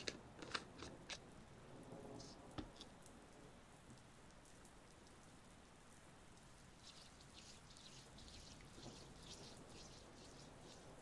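A few sharp taps and clicks on a jar of lanolin cream in the first second, then a quiet stretch, then faint crackling of fingers and palms rubbing together in the last few seconds.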